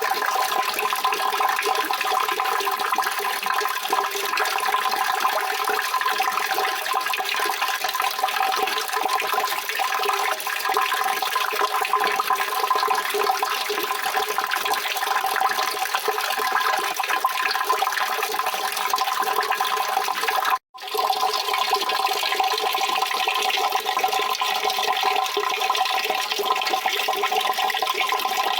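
Steady rushing water, continuous and unchanging, cutting out for an instant about twenty seconds in.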